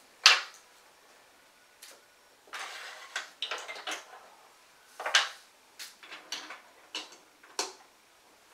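Large plastic LEGO Duplo bricks clicking and clattering as they are picked from a loose pile and pressed together. A sharp click just after the start is the loudest, followed by scattered clicks and short rattles.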